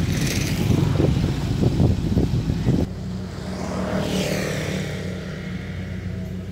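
Engine of a tracked rice combine harvester running close by with a rough clatter. About three seconds in it drops suddenly to a steadier, quieter engine drone.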